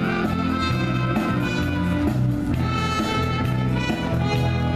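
Brass band of saxophones, trumpets and tuba playing an instrumental passage over a steady, repeating bass line.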